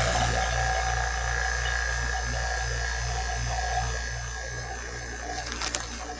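Electric vacuum pump running steadily as it pumps the air out of a glass bell-jar vacuum chamber: a low hum with a pulsing beat about four times a second, growing gradually quieter. A few faint clicks near the end.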